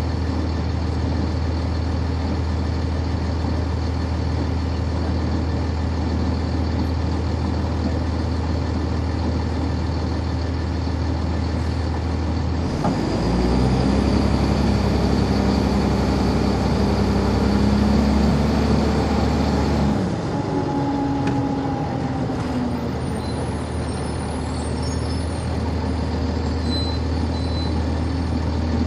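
Cummins ISC inline-six diesel of a 1999 NovaBus RTS transit bus, heard inside the bus, idling with a steady drone. About 13 seconds in it gets louder under throttle as the bus moves ahead for roughly seven seconds, then drops back to idle.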